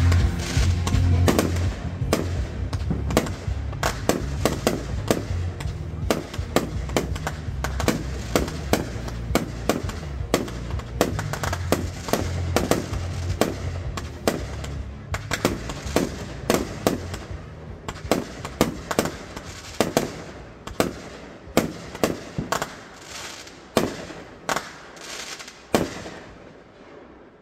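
Aerial fireworks bursting in a rapid barrage of sharp bangs, one after another. Over the last few seconds the bangs come further apart and softer.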